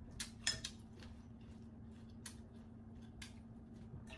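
Chewing of crunchy pounded apple salad close to the microphone: a few sharp crunches in quick succession about half a second in, then single crunches about a second apart, over a steady low hum.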